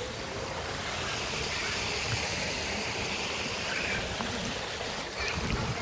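Steady hiss of outdoor swimming-pool ambience, water sounds blended with the open air, with no single sound standing out.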